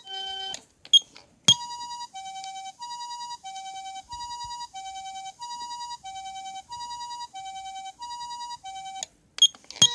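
Patlite SAP-500RBZ-HF siren amplifier's harmonic siren sounding the Japanese ambulance two-tone pattern: a higher and a lower electronic tone alternating about every three-quarters of a second. Sharp clicks come about a second in and again near the end, where the siren switches between tone patterns.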